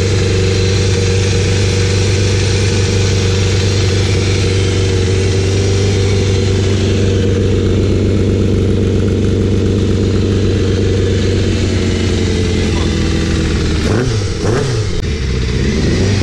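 Yamaha FZS600 inline-four motorcycle engine, fitted in a quad frame, idling steadily as it burns off the last of the fuel in it. About fourteen seconds in it is revved up and down a couple of times.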